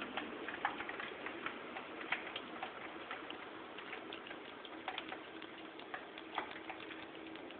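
Thunderstorm rain falling, with drops ticking irregularly and sharply on a hard surface close by over a steady hiss of rain.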